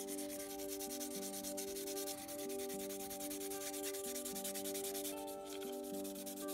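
Fine-grit sanding sponge rubbed back and forth over the painted plastic body of a 1/24 scale model car, a fast, steady scratchy rasping, over soft background music.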